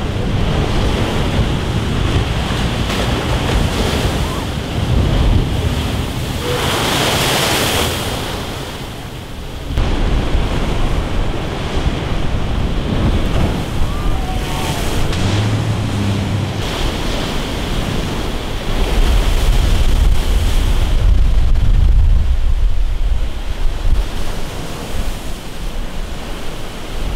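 Heavy storm surf from an offshore hurricane swell breaking against a concrete sea wall and rocks: a continuous rush of water and hiss of spray, with one big crash about seven seconds in. Wind buffets the microphone with a low rumble, strongest in the last third.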